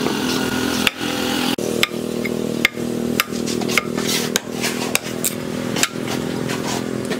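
Heavy chopping knife striking a wooden root on a wooden chopping block, hewing off chips: about ten sharp chops at an irregular pace. A steady hum with several fixed tones runs underneath.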